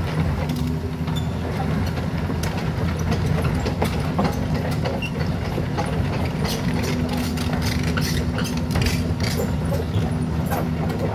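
Tracked excavator fitted with a hydraulic breaker, its diesel engine running steadily as it crawls along, with frequent clanks and rattles from its steel tracks.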